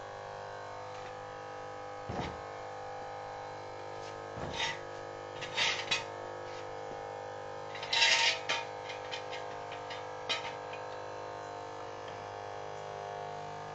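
The electric hydraulic pump motor of a 24-volt electric towable backhoe running with a steady hum. Several short knocks and clatters sound over it, the loudest about eight seconds in.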